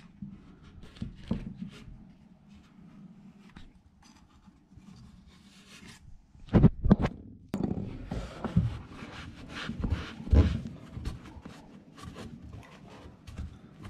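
Faint scraping as glue squeeze-out is cleared from a clamped wooden joint with a plastic straw. A few sharp knocks of handling against the wooden carcass come about six and a half seconds in and again near ten seconds, and a cloth rag rubs close to the microphone near the end.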